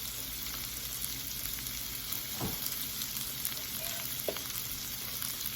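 Sliced vegan sausage and onions sizzling steadily in a hot skillet, with a few light clicks from stirring.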